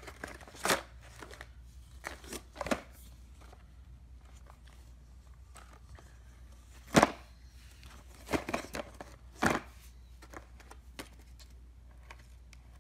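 Plastic bag around a new chainsaw chain crinkling and rustling as it is handled, in short separate bursts, the loudest about seven seconds in.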